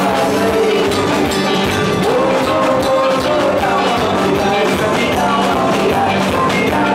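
Live chutney music: a male singer sings into a handheld microphone over a band of keyboard and guitar with a steady beat, the long held vocal notes wavering in pitch.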